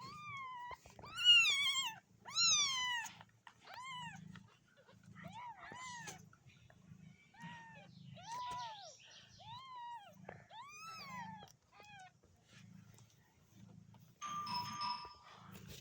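A cat meowing over and over, about a dozen separate rising-and-falling meows, the loudest two in the first three seconds. A short steady tone sounds near the end.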